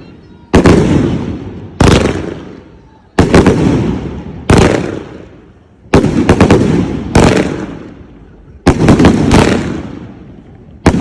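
Fireworks going off in a steady rhythm: four pairs of loud booms, the two booms of each pair about a second and a half apart, each with a long echoing rumble. Another boom comes right at the end.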